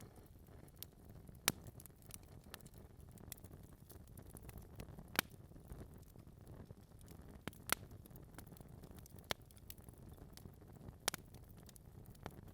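Wood fire in a fireplace crackling: burning logs give off scattered sharp pops and snaps, a handful of them louder, over a faint low rumble of the flames.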